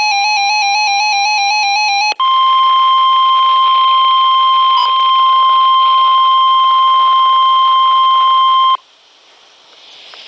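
A weather alert radio's electronic alarm warbles rapidly between two buzzing pitches. It then gives way to the steady 1050 Hz NOAA Weather Radio warning alert tone, held for about six and a half seconds, before dropping to faint radio hiss near the end.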